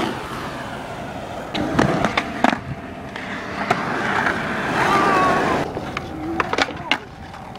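Skateboard wheels rolling on a concrete skatepark bowl, the rolling noise swelling and fading as the skater carves. Several sharp clacks of the board and trucks on the concrete come in clusters, about two seconds in and again near the end.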